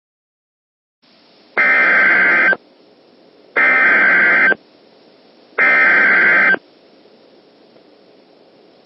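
Emergency Alert System SAME header: three identical bursts of shrill digital data tones, each about a second long and a second apart, over a faint radio hiss. This is the coded header that opens an EAS alert and sets off alert receivers.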